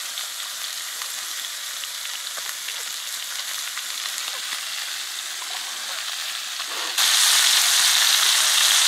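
Seasoned catfish fillets frying in oil and melting butter in a cast-iron skillet over a campfire: a steady sizzle with faint pops, which jumps suddenly louder about seven seconds in.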